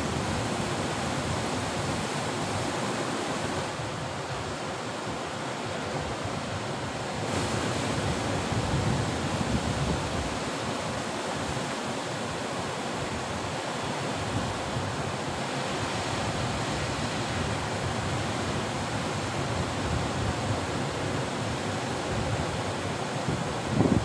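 Ocean surf breaking and washing onto a sandy beach and rocks: a steady rush of waves that swells louder about eight seconds in.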